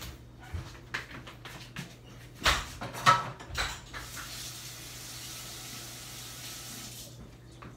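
Kitchenware clattering and knocking, loudest about two and a half and three seconds in. Then water runs from a tap for about three seconds and is shut off.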